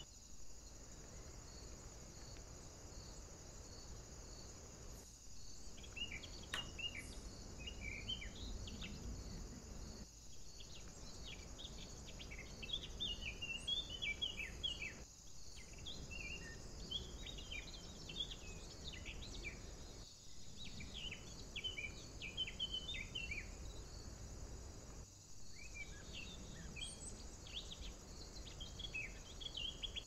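Small woodland birds singing, scattered chirps and short twittering phrases, over a steady high-pitched hum. The sound drops out for a moment about every five seconds.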